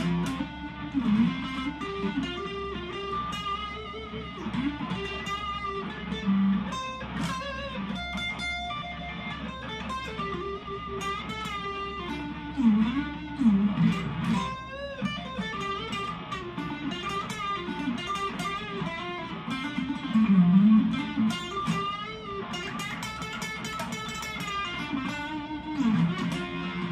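Harley Benton Modern Strat SSH electric guitar played on its neck single-coil pickup: quick lead runs and licks with string bends. A faint steady mains hum sits underneath, the slight single-coil hum the player points out for this pickup.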